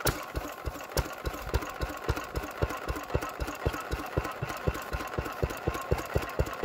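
Small single-cylinder stationary engine running, with evenly spaced firing beats that quicken from about three to about six a second as it picks up speed just after being started.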